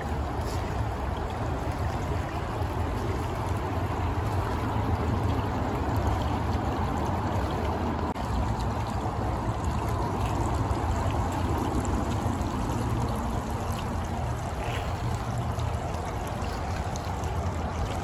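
Shallow creek running over a gravel bed: a steady rush of flowing water.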